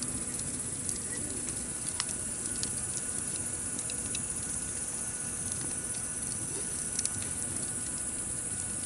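Wood fire burning in a campfire pit: a steady hiss with scattered sharp crackles and pops, the loudest about two seconds in and again about seven seconds in.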